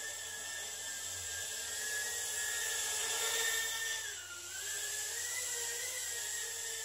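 R010 mini quadcopter drone's small electric motors and propellers buzzing with a steady high whine. About four seconds in the pitch dips, then rises and wavers as the throttle changes.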